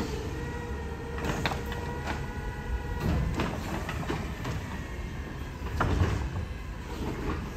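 Heil automated side-loader garbage truck dumping a cart: the diesel idles under a steady hydraulic whine while the arm works, with several clunks of the cart banging as it is lifted, shaken out over the hopper and set back down, the loudest about six seconds in.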